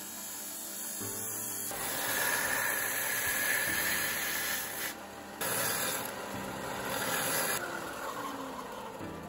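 Ryobi belt sander grinding wood as a wooden blank is pressed onto the moving belt: two spells of steady abrasive hissing, the first starting about two seconds in and the second ending about two seconds before the end, with a short break between them. Background music plays underneath.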